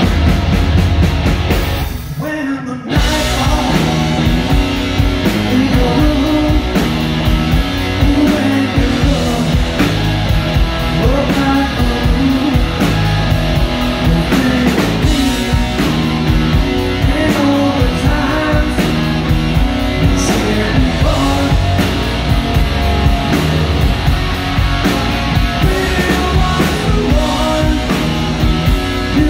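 A rock band playing a song live, with guitar and drum kit. There is a short break about two seconds in, then the full band comes back in.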